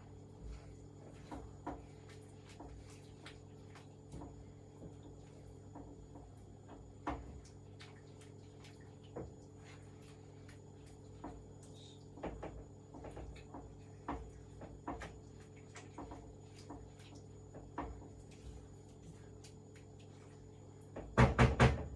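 Scattered light clicks and knocks of kitchen utensils and cookware over a steady low hum, with a louder burst of sound about a second before the end.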